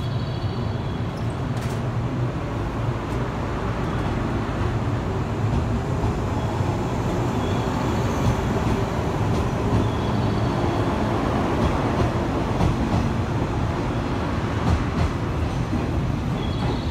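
JNR Series 103 electric multiple unit pulling out of the platform, its cars rumbling past on the rails. The noise builds a little through the middle and eases near the end as the last cars clear.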